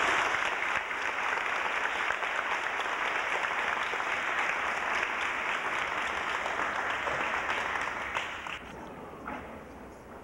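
Audience applauding, dying away about eight to nine seconds in.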